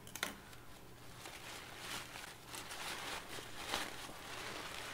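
Tissue paper rustling and crinkling as a wrapped gift is handled, in short irregular scrunches, one sharper crinkle about three-quarters of the way through.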